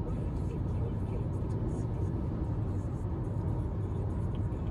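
Steady low road and tyre rumble inside a BMW's cabin cruising at about 140 km/h on a wet motorway, with a few faint ticks near the end.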